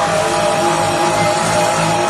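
CNC sink polishing machine running, its spinning polishing wheel pressed against the stainless steel side wall of a sink: a steady whine over an even grinding hiss.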